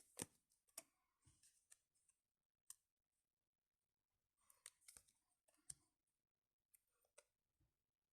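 Faint handling noises: scattered light clicks and short rustles of trading cards and their packaging being handled, in three brief clusters.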